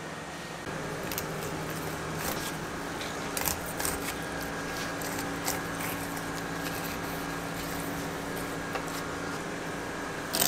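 Salmon being handled and cut with a long knife on a plastic cutting board: scattered small clicks, knocks and wet handling sounds, with a sharper cluster of clicks near the end. A steady mechanical hum runs underneath.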